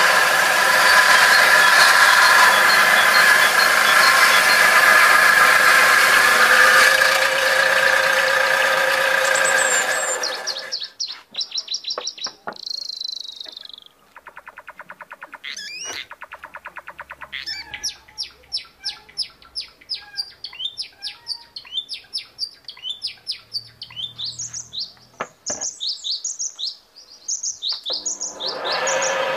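Homemade table saw, driven by a recycled water-pump motor, running with a steady whine as a board is fed through it. About ten seconds in it stops, and small birds are heard chirping and twittering. The saw starts running again near the end.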